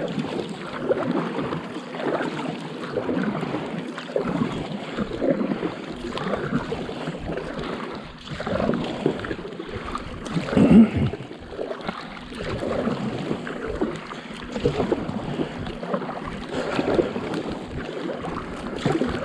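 Paddle strokes from a paddleboard: the blade dipping and pulling through calm sea water every second or two, with water sloshing and lapping around the board. One stroke about halfway through is louder than the rest.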